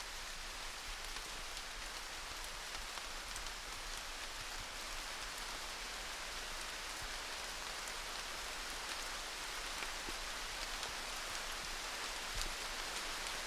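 Steady rainfall: an even hiss of rain with many small drops ticking on a surface, and one slightly sharper drip near the end.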